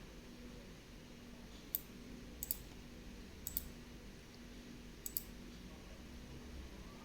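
Light, sharp clicks: a single click, then three quick double clicks about a second apart, over a faint steady background.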